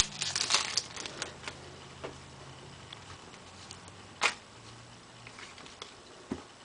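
Baseball trading cards being handled and flipped through by hand: light rustles and clicks at first, then a single sharper card snap about four seconds in and a softer one near the end.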